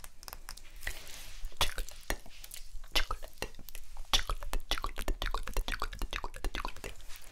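Wet mouth sounds and tongue clicks made close to the microphone: a quick, irregular run of sharp, smacking clicks that grows denser about a second and a half in.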